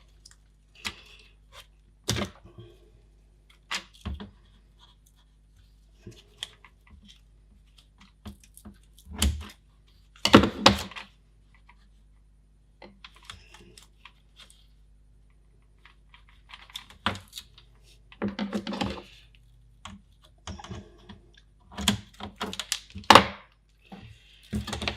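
Irregular small clicks, taps and short rustles of hands working double-sided tape and parts inside a plastic computer case, with a few louder scrapes partway through and near the end.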